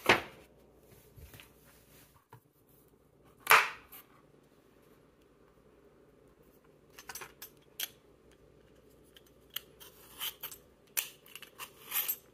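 Vegetable peeler scraping the skin off a pear in short strokes. There is a sharp knock at the start and a louder one about three and a half seconds in, then a run of brief scraping strokes in the last five seconds.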